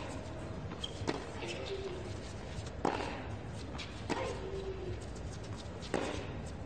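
Tennis rally: tennis ball struck by rackets four times, about one and a half seconds apart, alternating between the players. A short grunt from a player follows some of the hits.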